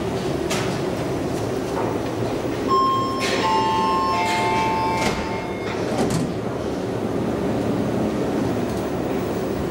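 Elevator arrival chime: three bell-like tones struck one after another, each lower than the last and left ringing, about three seconds in, over a steady rumble of the moving car and station, with a few sharp clicks.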